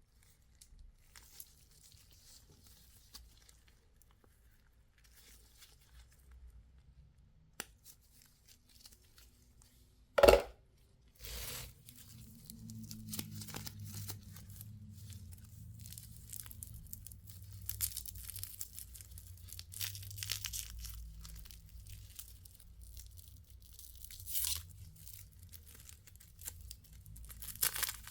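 Plastic candy wrappers crinkling and tearing as lollipops are unwrapped, faint at first and then close and continuous for the second half. A single loud knock comes about ten seconds in.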